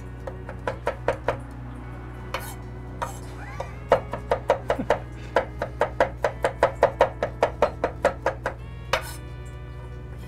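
Kitchen knife chopping rapidly on a cutting board, mincing fresh ginger: a short run of strokes at the start, then a longer fast run of about five strokes a second from about four seconds in, ending with a single chop near the end.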